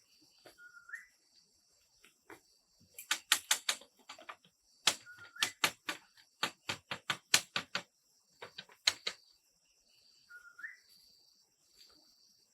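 Runs of sharp knocks, about four or five a second, in three bursts through the middle, over a steady high insect drone. A short rising bird call sounds three times.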